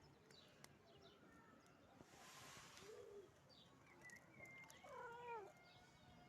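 Faint cat meows: a short one about three seconds in and a longer, stronger meow that falls in pitch about five seconds in.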